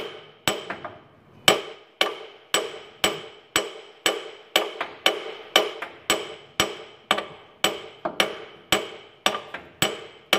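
Steady hammer blows on steel, about two a second, each with a short metallic ring, pounding on a rust-seized part of a tractor transmission to knock it loose.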